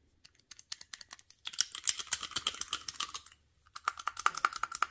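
Rapid metal clicking and rattling of an impact socket locked onto a Snap-on half-inch-drive pin-detent universal swivel adapter as it is twisted and worked in the hands. A few scattered clicks are followed by two dense runs, the second with a steady ringing tone under the clicks.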